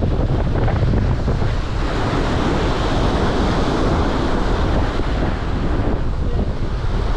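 Strong wind buffeting the microphone over rough, choppy lake water, a steady rushing noise that swells for a few seconds in the middle.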